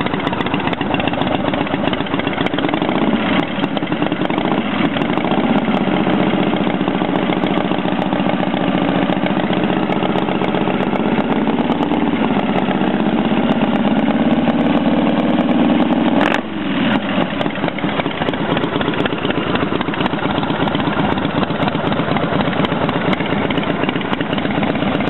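Freshly rebuilt motorcycle engine idling steadily after its first start, choke pushed back in, running smoothly. A brief dip in the sound about sixteen seconds in.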